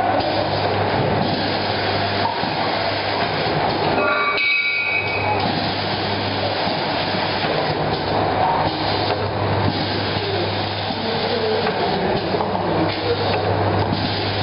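BG32V cup filling and sealing machine running: a steady motor hum under the rattle of the mould chain indexing. About four seconds in, the noise briefly dips and a short high-pitched tone sounds.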